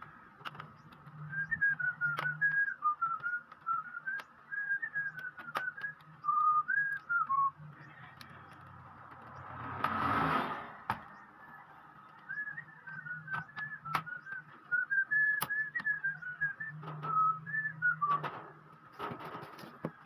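A tune whistled in short, sliding notes, in two phrases with a pause between them, over a faint steady low hum and scattered small clicks. A brief rushing swell fills the pause.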